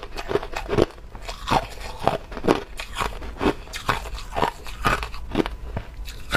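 Hard clear ice crunching between a person's teeth as she chews, close to a lapel microphone, with a crunch about twice a second.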